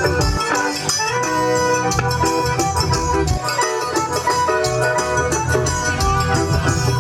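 Live forró pé de serra band playing an instrumental break: accordion melody over a steady percussion beat.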